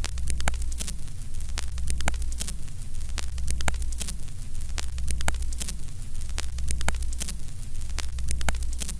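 Old film-leader countdown sound effect: crackling static and scattered pops over a steady low hum, with a falling sweep repeating about once a second in step with the count.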